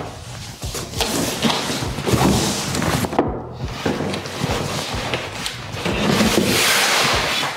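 Rustling of a fabric cover and scraping and knocking of a cardboard box as a bagged all-in-one brewing system is lifted out, with many small irregular knocks.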